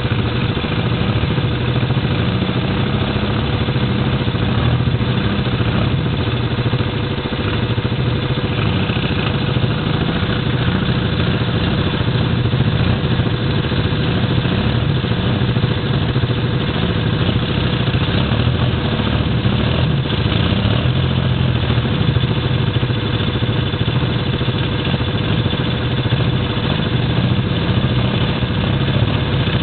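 ATV engines idling steadily close by, with a constant engine hum and a steady whine over it.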